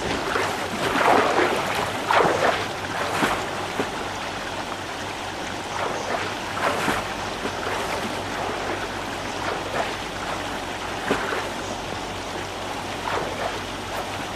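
Water splashing as a person swims and wades through a river, with several louder splashes in the first few seconds and another about halfway.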